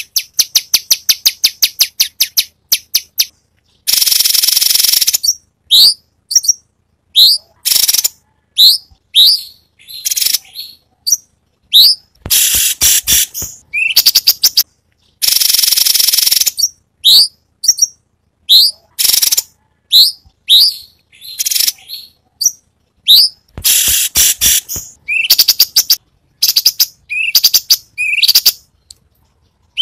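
Cucak cungkok songbird singing a varied song. It opens with a fast run of sharp ticks, then mixes long, harsh buzzy rattles with short whistled notes that sweep upward.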